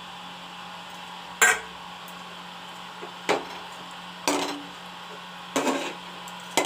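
Metal utensil knocking against the cooking pan of chicken curry while stirring in the gravy: four separate clanks, each with a short ring, about one to two seconds apart, over a steady low hum.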